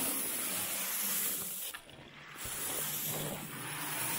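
Shelled corn poured into a wooden feeder trough: a steady hiss of kernels pouring, in two pours with a short break a little under two seconds in.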